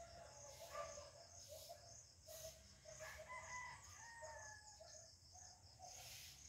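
Faint outdoor ambience of short clucking and chirping calls from fowl and birds, over a steady, rhythmic high-pitched chirring.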